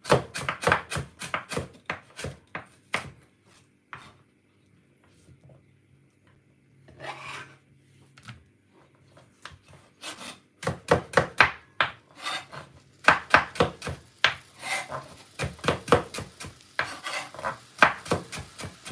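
Chef's knife slicing carrots on a wooden cutting board: runs of quick knocks of the blade on the board, several a second, with a quieter pause in the middle broken by a short scrape.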